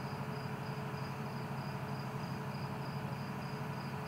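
A cricket chirping steadily, about three even chirps a second, over a steady low hum.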